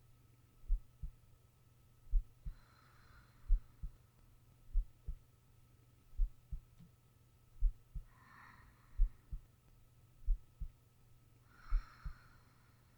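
A sleeping person's heartbeat, miked close: slow paired low thumps (lub-dub), about every 1.4 seconds, over a faint steady hum. Soft breaths are heard three times, the last near the end.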